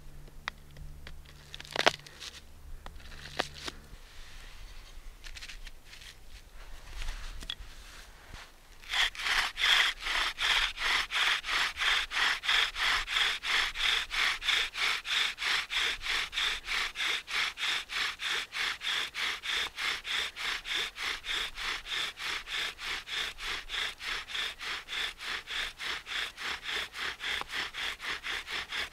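A knife blade carves a notch into a large-toothed aspen fireboard, with light scraping and a few sharp clicks. About nine seconds in, a bow drill starts: an eastern white pine spindle is spun back and forth in the aspen fireboard, making a steady, shrill rasp that pulses with each stroke of the bow.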